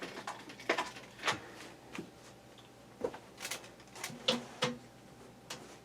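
Irregular small clicks and knocks of box fan parts and a new power switch being handled and fitted by hand, about eight or nine separate taps.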